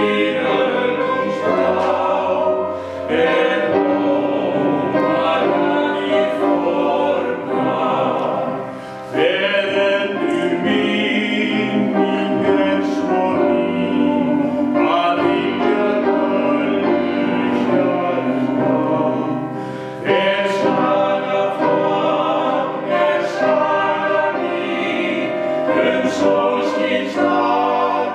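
Male vocal quartet singing an Icelandic song in close harmony, in long sustained phrases with brief breaks about 3, 9 and 20 seconds in.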